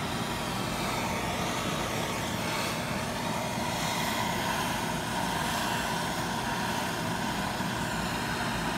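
Steady machine hum and rush of shop background noise, like a running fan or air-conditioning unit, even in level throughout.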